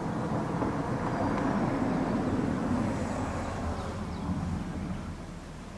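Engine noise of something passing, swelling to its loudest two to three seconds in and fading by about five seconds.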